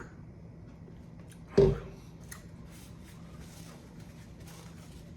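A man eating chicken wings: faint chewing and wet, sticky mouth clicks, with one loud thump about a second and a half in.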